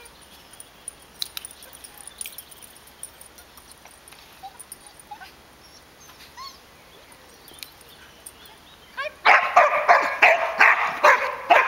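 A dog barking in a rapid run of loud barks, starting about nine seconds in, after a stretch with only faint background sounds.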